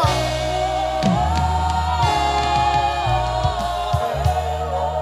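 Live gospel worship music: voices hold long wordless sung notes over a bass line that changes note about once a second.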